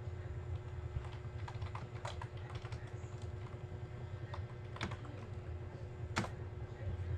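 Typing on a computer keyboard: scattered keystrokes, with two louder key presses in the second half, over a steady low hum.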